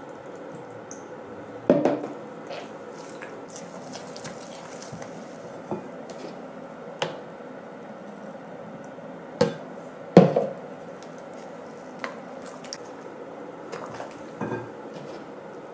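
Silicone spatula mixing choux pastry dough in a glass bowl as beaten egg is worked in: wet squelching of the dough with a series of short knocks of the spatula against the glass, the loudest about ten seconds in.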